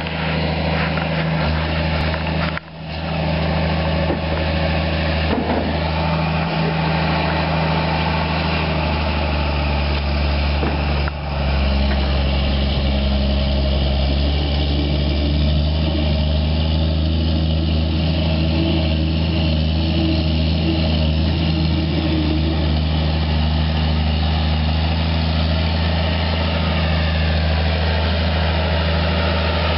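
Diesel engine of a big articulated John Deere four-wheel-drive tractor running steadily as it drives through a flooded creek, with a deep, even drone.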